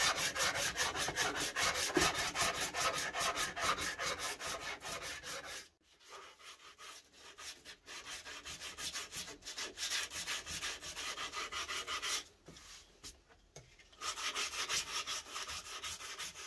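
Hand-sanding the edge of a wooden guitar body, rounding it over, in quick back-and-forth strokes about five a second. The strokes stop briefly about six seconds in, run quieter for a while, pause again, and come back strongly near the end.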